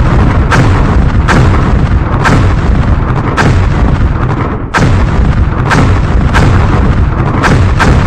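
Loud, continuous heavy rumble with a string of sharp bangs at uneven spacing, about one or two a second.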